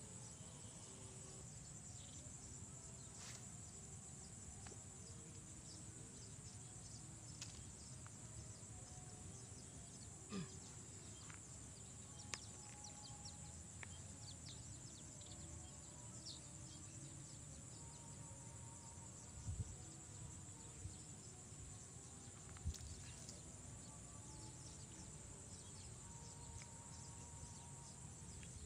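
Faint steady high-pitched chirring of insects, with a few small faint clicks.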